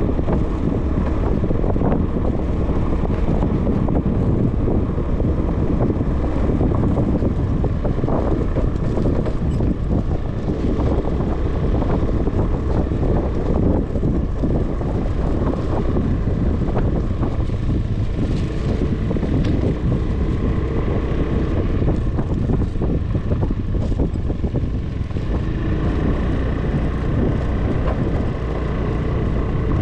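Small motorcycle running along a rough dirt road, its engine and tyre noise mixed with wind buffeting the microphone and occasional knocks from bumps.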